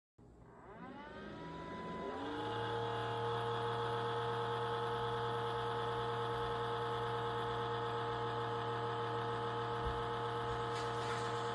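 A small electric motor or fan spinning up, its whine rising in pitch over about two seconds, then running at a steady pitch with a hum until it cuts off abruptly at the end.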